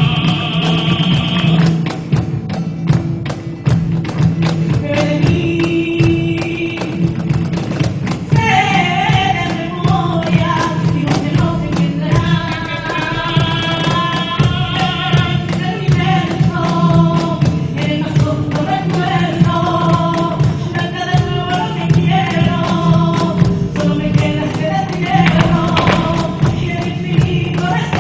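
Music: voices singing a melody over dense, fast percussion that runs throughout, with the singing coming in a few seconds in.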